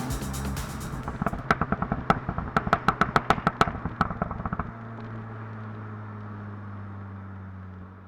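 Turbocharged 2.0-litre four-cylinder of a 2016 SEAT Leon Cupra 290, through its sport exhaust with the middle silencer deleted. Sharp exhaust pops and crackles come in a quick irregular series for a few seconds, then stop about halfway through. The engine settles to a steady idle hum.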